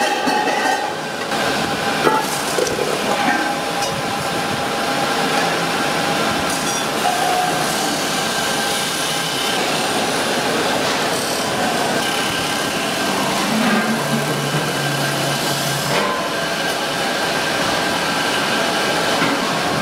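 Belt-driven lathe spinning a metal pressure cooker body while a hand-held cutting tool scrapes against the rim, trimming it: a steady mechanical grinding noise with a thin whine running through it.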